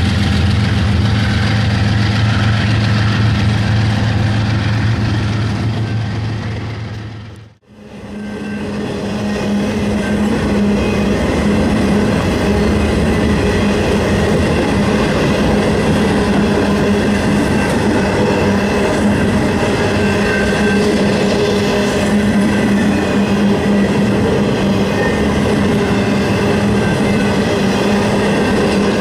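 A diesel locomotive engine running with a steady low hum. It fades out abruptly about seven seconds in, and then train cars rolling past on the rails make a steady rumble with some clickety-clack.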